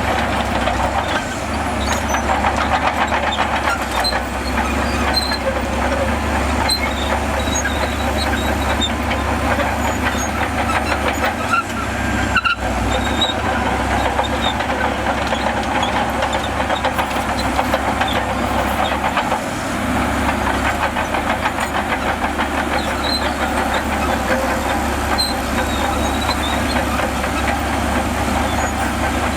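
Bulldozer's diesel engine running steadily under load, with the clatter of its steel tracks; the sound breaks off for a moment about twelve seconds in.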